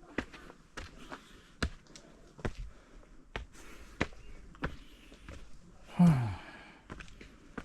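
Walking footsteps in flip-flops, slapping sharply about once every two-thirds of a second. About six seconds in comes a single loud, out-of-breath sigh that falls in pitch.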